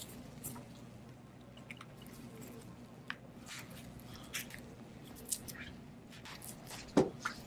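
Scattered light clicks and crackles from the Samsung Galaxy S6 Active's frame and back housing being pressed and flexed by gloved hands, with a sharper snap about seven seconds in: the frame's retaining clips starting to come loose.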